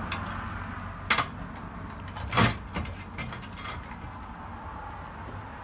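A few sharp clicks and knocks, the loudest about two and a half seconds in, from a reciprocating saw's blade and shoe being set against a window frame and nail fin before the cut, over a low steady hum.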